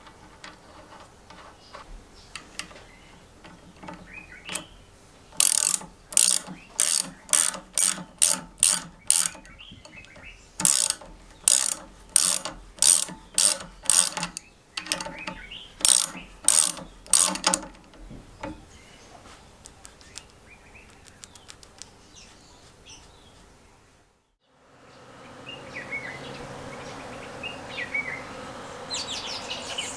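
Ratcheting ring spanner clicking in runs of quick strokes as it tightens a nut onto the shaft of a lawnmower bevel gear, lasting about twelve seconds. After a sudden break, a steady hum of bees in a tree with a few bird chirps.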